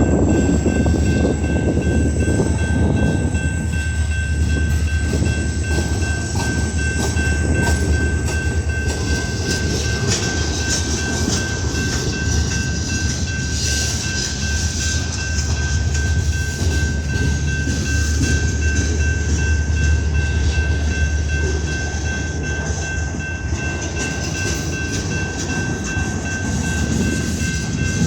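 Freight train rolling past: a steady, loud low rumble of cars and wheels on the rails, with a thin steady high tone running under it.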